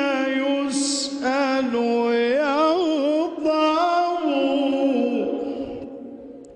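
Unaccompanied male voice chanting an Islamic devotional supplication (ibtihal) in long, ornamented melismatic phrases. The last held note fades away near the end.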